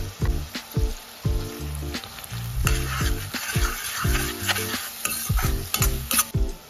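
Onions frying in oil in a stainless steel kadai, sizzling, with a metal spatula stirring and scraping the pan from about two and a half seconds in. Background music with a bass line and a steady beat plays under it.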